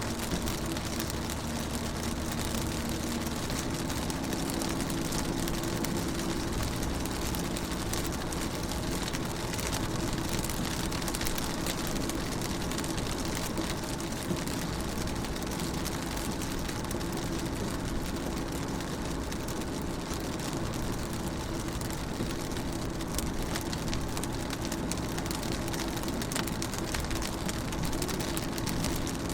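Rain falling steadily on a window, an even hiss full of small drop ticks, with a steady low hum underneath.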